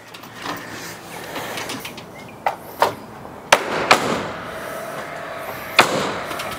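Sharp knocks and cracks from timber roof trusses being handled and fixed, about six of them spread out, the loudest a little past halfway, over a steady rushing noise.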